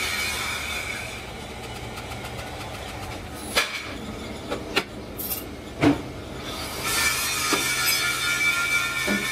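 Heavy rim-forming press working a steel truck-wheel rim ring: a steady machine hum with a high metal-on-metal squeal near the start and again toward the end. Several sharp metal clanks come in the middle, the loudest about six seconds in.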